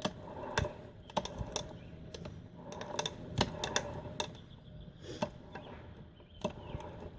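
Irregular light clicks and taps from a Yamaha QT50 moped crankshaft and connecting rod being turned and handled by hand in the open crankcase.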